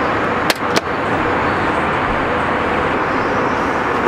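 Steady roar of airliner cabin noise, with two sharp clicks about half a second in as the seat suite's privacy door is worked.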